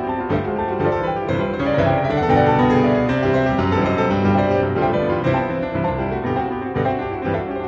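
Instrumental background music led by piano, with a run of notes.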